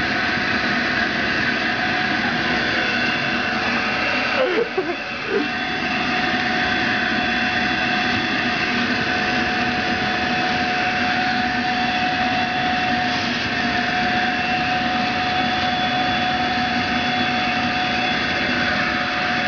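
Vacuum cleaner running steadily with a constant whine, drawing air through a vacuum forming platform to hold a hot styrene sheet down over the mold.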